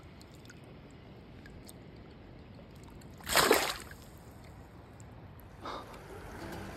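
Creek water running softly, with a short, sharp splash about three seconds in as a hand-held trout is let go into the shallow water.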